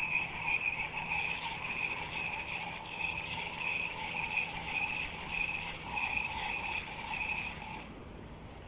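Spinning reel being cranked by hand, its gears whirring in an even rhythm of about two pulses a second as line is wound in. The cranking stops near the end.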